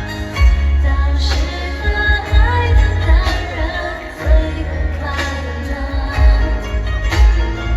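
Mandopop dance music: a woman singing over a heavy, pulsing bass beat.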